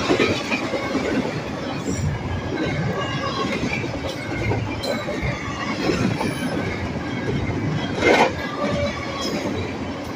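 Double-stack intermodal freight cars rolling past, a steady rumble of steel wheels on rail with clacking and some light wheel squeal. One louder clank comes about eight seconds in.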